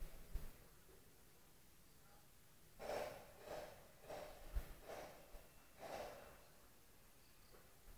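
Faint, soft breaths close to the microphone, a run of several breaths about three to six seconds in, with a couple of faint handling knocks.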